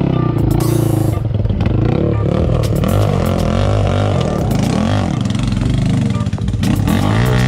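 ATV engine revving up and down over and over, its pitch rising and falling about once a second, as the quad is pushed through a mud pit.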